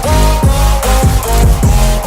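Electronic dance music with a heavy bass line, kick drums about twice a second and sustained synth notes.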